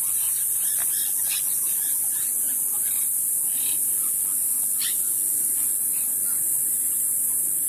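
A loud, steady, high-pitched hiss runs on without change, with scattered short chirps over it.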